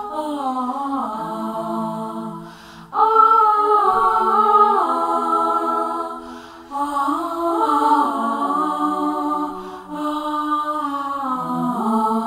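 Wordless sung "ah" vocals in long held, gliding phrases, with layered voices and little or no accompaniment. The phrases break off briefly about every three seconds.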